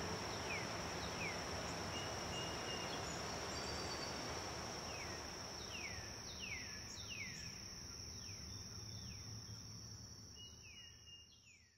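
Outdoor nature ambience: a steady high-pitched insect drone, typical of crickets, with short falling chirps repeated over it. It fades out near the end.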